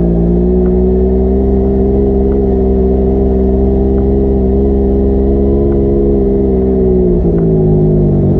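Engine of a ridden off-road vehicle running at a steady speed, its pitch dipping near the end as it eases off.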